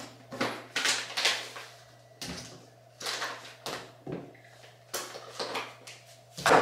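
Irregular rustling and knocking as zippered makeup and toiletry bags and a corded hair styling tool are grabbed and piled into the arms, over a low steady hum.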